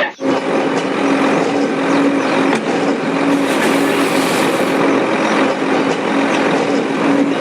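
Steady engine sound, like a tractor engine running at a constant idle, with an unchanging hum. It starts abruptly just after the opening.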